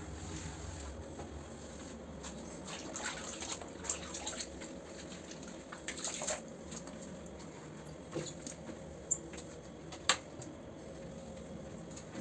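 Faint steady hum with scattered small clicks and rustles, then two sharper clicks about nine and ten seconds in.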